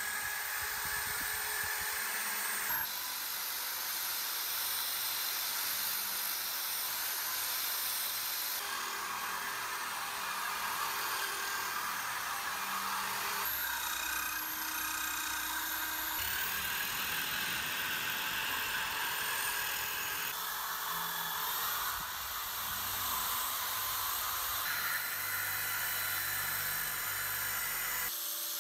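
Cordless drill spinning a wire wheel brush against a rusty cast-iron meat grinder, scouring rust off the threads and inside of the barrel: a steady whir and scratching hiss. It changes abruptly every few seconds as the brush moves to a different spot.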